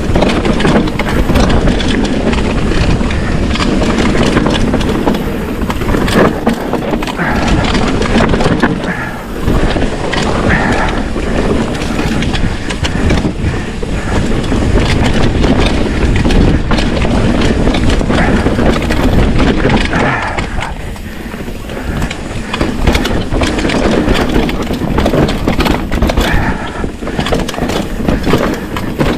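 Trek Slash mountain bike on Bontrager Kryptotal tyres descending a dirt forest trail. The tyres rumble over roots and stones, with frequent knocks and rattles from the bike, over a heavy low rumble.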